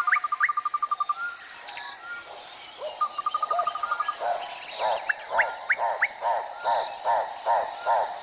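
Wildlife calls: a rapid trill that repeats, short rising whistles, and from about halfway on rhythmic croaking at about three calls a second.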